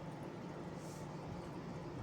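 Steady low background hum, with a brief soft rustle about a second in.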